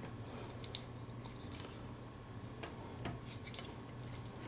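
Faint clicks and rubbing of a plastic transforming robot figure being handled as its arm joints are moved, over a steady low hum.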